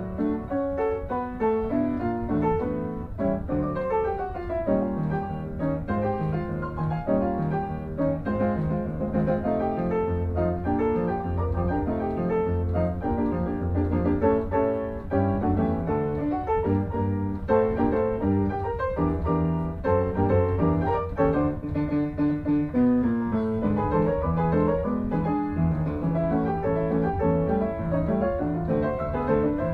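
Piano music, a continuous run of notes over low bass notes.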